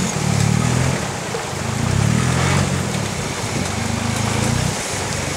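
Toyota Hilux pickup's engine revving in surges about a second apart as the truck crawls through a rocky river, dipping briefly near the end.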